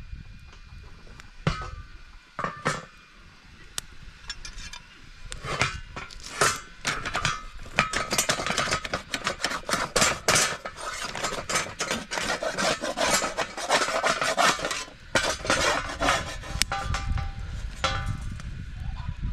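Metal dishes and utensils clinking and scraping: a couple of separate knocks, then a dense run of quick clinks from about five seconds in, thinning out near the end.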